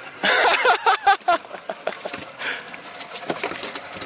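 Two freshly landed blue runners flapping on the boat deck: a quick, uneven run of light slapping knocks. A short excited shout of the angler's comes in the first second.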